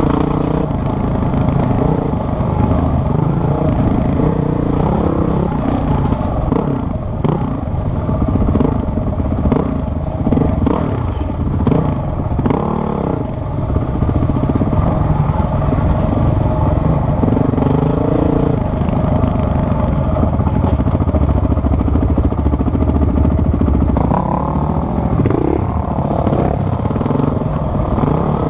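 Dirt bike engine running hard on a rough trail, heard from on the bike, its revs rising and falling again and again as the throttle is opened and closed.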